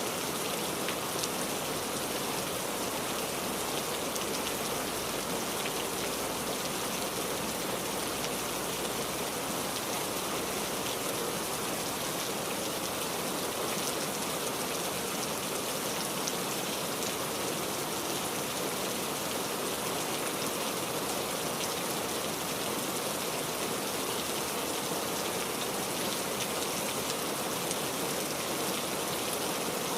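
Steady rain falling, a constant hiss of rain with many fine individual drop ticks and no let-up.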